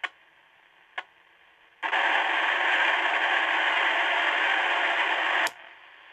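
Old AM radio tuned to 530 kHz hissing faintly with two sharp clicks, then, about two seconds in, a loud burst of static lasting nearly four seconds that cuts off suddenly: corona discharge from a high-voltage transformer picked up by the radio as interference.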